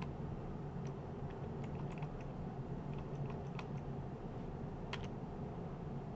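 Computer keyboard keystrokes, a few scattered clicks at a time, over a steady low hum.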